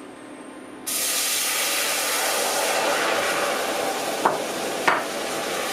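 Lemon juice poured into a very hot stainless saucepan on an induction hob, hitting the metal with a sudden loud hiss that carries on steadily as the juice flashes to steam. Two short knocks come near the end.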